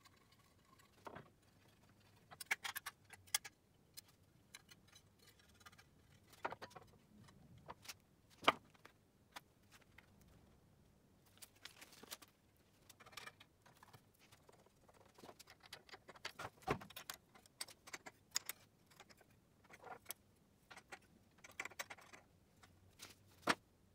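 Scattered clicks, taps and clinks of metal parts being handled and set in place, as the slotted metal work table is fitted to a benchtop belt and disc sander, with a few louder knocks.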